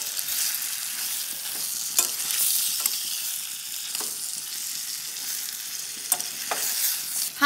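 Sliced tomatoes, onions, ginger and green chillies sizzling in butter in a steel pan, cooking down until soft, while a steel spoon stirs them. The spoon clinks sharply against the pan a handful of times.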